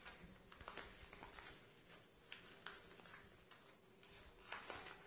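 Faint crinkles and soft clicks of paper being folded and pressed flat by hand on a tabletop, a few scattered handling sounds over near silence.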